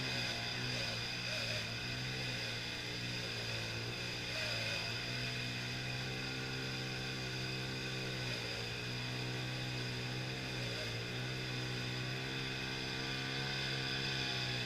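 An engine running steadily, its pitch sagging and recovering every few seconds as if briefly loaded, with a steady high whine above it.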